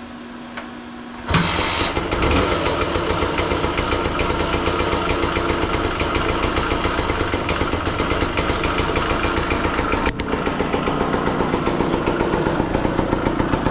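Serveta Jet 200 scooter's two-stroke single-cylinder engine catching about a second in and settling into a steady idle with an even, rapid beat.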